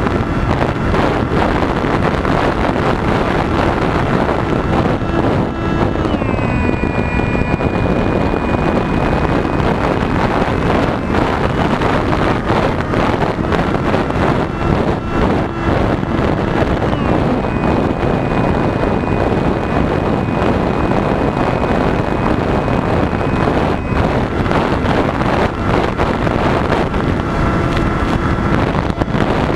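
Heavy wind rush on the microphone of a GoPro carried in flight by an electric RC plane, with the high whine of its electric motor and propeller over it. The whine drops sharply in pitch about six seconds in, holds, and shifts again around seventeen seconds, as the throttle changes.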